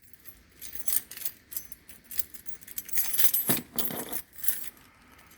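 A bunch of keys jangling and clinking, handled in irregular bursts while being sorted through to find the right key.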